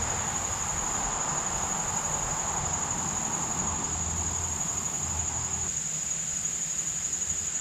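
Steady, unbroken high-pitched insect chorus. Under it runs a lower rushing noise that cuts off suddenly about six seconds in.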